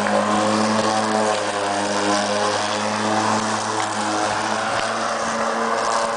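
Cordless battery-electric lawnmower, fitted with a solar panel, running under load as it is pushed through tall grass: a steady motor-and-blade hum whose pitch wavers a little as the blade bites into the grass.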